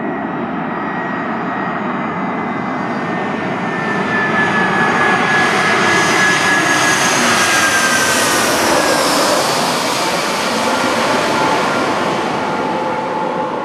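Airbus A320-214's CFM56-5B turbofan engines on final approach, passing low overhead: the jet noise grows louder from about four seconds in, and the engine whine drops in pitch as the airliner passes and moves away.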